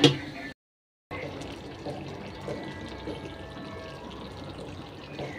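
Chicken curry simmering in an open pot, a steady bubbling of liquid. It opens on the tail of a loud knock and drops out completely for about half a second just after the start.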